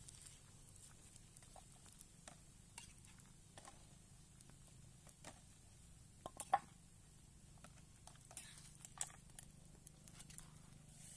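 Metal spatula stirring a pumpkin curry in a wok, giving faint, scattered scrapes and taps, with a sharper metal knock about six and a half seconds in.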